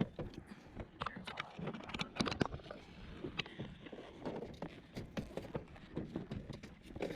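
Footsteps with scattered light knocks and clicks, irregularly spaced.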